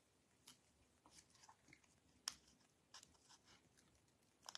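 Very quiet handling of paper craft pieces and glue dots: a few faint, scattered clicks and rustles, the sharpest about two seconds in, as small die-cut pieces are pressed in place with adhesive dots.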